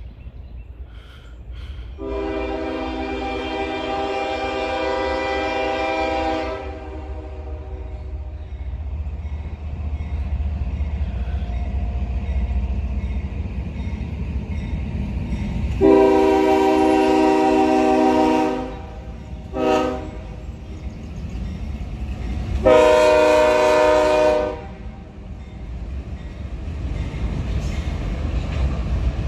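CSX diesel freight locomotive's multi-note air horn sounding the grade-crossing signal of long, long, short, long, over the low rumble of the approaching train.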